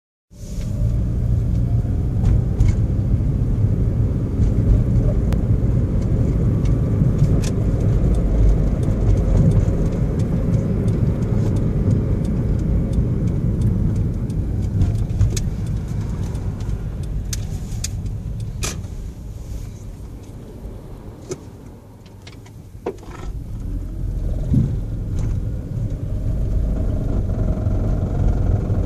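2010 Toyota Prius driving at low speed, a steady low rumble of engine and road that dies down to a lull around twenty seconds in, then builds again as the car pulls away. A few sharp clicks are scattered through it.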